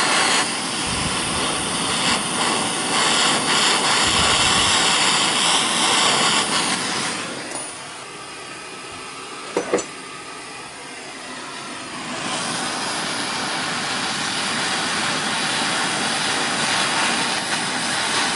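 MAP gas torch flame hissing steadily as it heats a copper tank seam for soft soldering. About seven seconds in the hiss falls away for some four seconds, with a brief click in the middle, then comes back.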